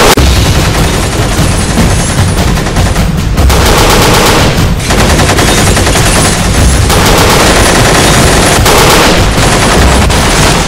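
Loud, rapid automatic gunfire in long, unbroken bursts, the movie-style machine-gun sound effect laid over an airsoft firefight.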